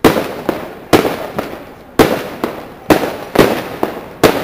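Fireworks display: aerial shells bursting overhead, six sharp bangs about a second apart, each trailing off in echo, with smaller pops in between.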